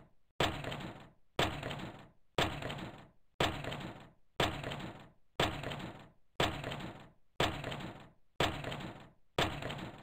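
A live-coded loop of an 'industrial' sample: a noisy, crash-like hit repeating about once a second, each one starting sharply and dying away over most of a second.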